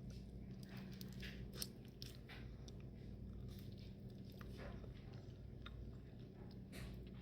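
Crawfish being eaten: scattered crunches and cracks of shell with chewing, and one sharper crack about a second and a half in, over a steady low hum.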